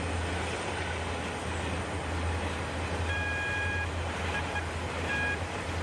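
Intermodal freight train of trailers on flatcars rolling past: a steady low rumble of wheels on rail. Brief high-pitched tones come in about three seconds in and again twice near the end.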